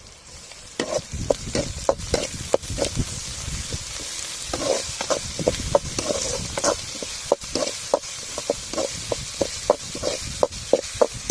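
Onions, green chillies and ginger-garlic paste sizzling in hot oil in a pan while a spoon stirs and scrapes them. The stirring strokes start about a second in and come about two to three a second over a steady sizzle.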